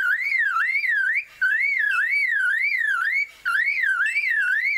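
Superb lyrebird mimicking a car alarm: a loud, electronic-sounding whistle that swoops up and down about two and a half times a second, in phrases broken by short pauses about a second in and about three seconds in.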